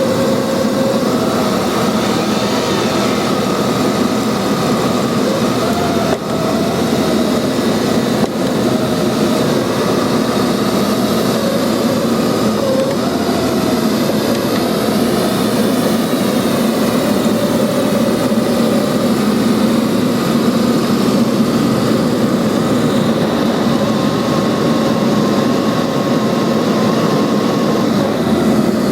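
Neato XV-21 robot vacuum running as it drives along, heard close up from on top of the machine: a loud, steady motor hum and whine whose pitch wavers slightly.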